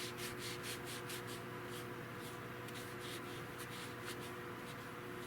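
Hand checkering tool scraping short, quick strokes into the wood of a gun stock, about five strokes a second at first and thinning out in the second half, over a steady low hum.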